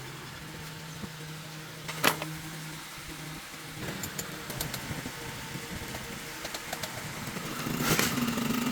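Knocks and clicks from hand work on an angle grinder's parts: one sharp knock about two seconds in, a few light clicks, and a louder scraping rustle near the end, over a steady low hum.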